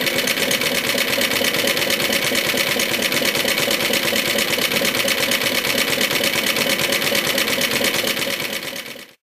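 The small single-cylinder engine of a Suffolk Colt motor mower from about 1958 running steadily at a fast, even beat. The sound fades out near the end.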